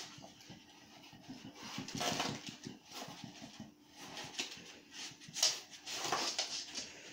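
A dog tearing and chewing at a cardboard box to get at food hidden inside: irregular ripping and crinkling of cardboard in uneven bursts, the loudest about five seconds in.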